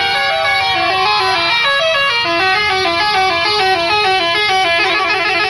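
A bus's basuri musical air horn playing a melody of short stepped notes, with sliding tones over it. Near the end it changes to a faster warbling pattern.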